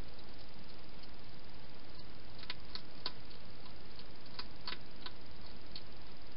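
Wild hedgehog eating from a bowl inside a plastic feeding box: small sharp clicks in two short clusters, about two and a half and four and a half seconds in, over a steady hiss.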